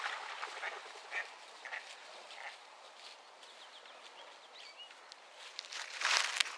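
Ducks quacking now and then over footsteps and rustling through brush, with a louder burst of rustling about six seconds in.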